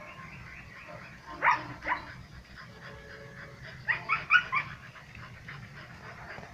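Hunting dogs barking at a wild cat: two barks about a second and a half in, then a quick run of three or four barks about four seconds in.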